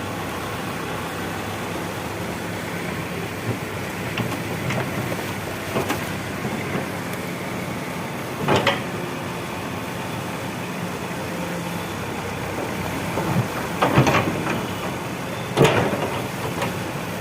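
Escorts Digmax 2 backhoe loader's diesel engine running steadily while it works, with a few sharp knocks, the loudest about 8.5, 14 and 15.5 seconds in.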